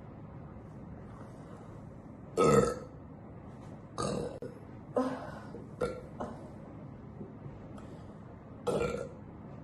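A woman burping again and again: a long, loud belch about two and a half seconds in, a quick run of shorter burps a couple of seconds later, and another belch near the end.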